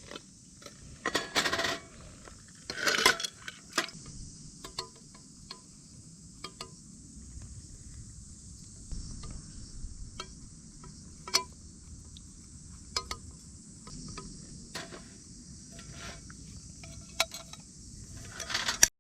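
Small clinks and light knocks of teaware being handled while brewing oolong tea, with the loudest clusters about a second and three seconds in, over a steady high chorus of insects.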